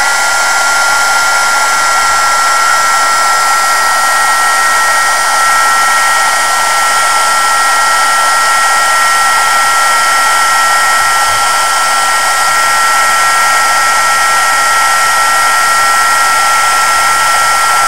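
Martha Stewart hobby embossing heat gun running steadily, its fan blowing hot air onto heatshrink tubing over an LED's leads: a loud, even rush of air with a steady high two-note whine.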